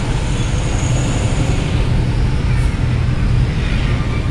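Steady low rumble of queued trucks and cars with engines running.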